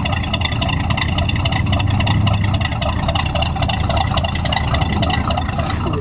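The 1968 Oldsmobile 442's 400 V8 running steadily, heard close at the tailpipe through its trumpet-tipped exhaust, with a deep, even exhaust note.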